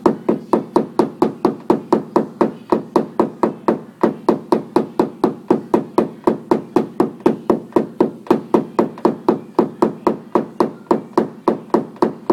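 Steady, rapid tapping of a hammer on a tap-down tool against a car body panel, about four strikes a second: paintless dent repair knocking down the high crown around a pulled dent.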